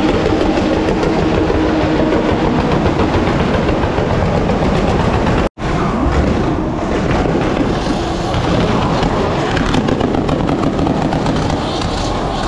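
Drift cars running at high revs while sliding, loud and continuous. The sound cuts out abruptly for an instant about five and a half seconds in, then carries on.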